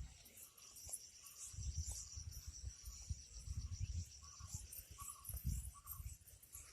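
Insects, likely crickets, chirring in a steady, finely pulsing high trill, with irregular bursts of low rumble underneath.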